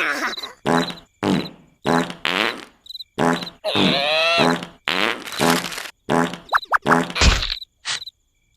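Cartoon-style snoring sound effects: a quick series of short snores about half a second apart, with one longer, whistling snore that wavers in pitch about four seconds in. Crickets chirp in the background, and the snoring stops shortly before the end.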